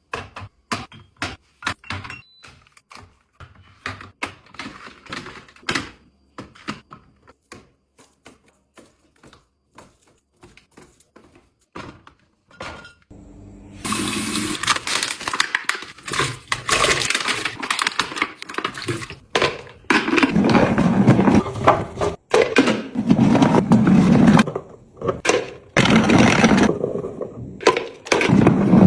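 Scattered light clicks and taps of containers and small items being handled, then about halfway through a long, loud pour into a container that comes in several surges.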